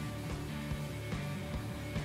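Background music: a light guitar-led track with a steady beat.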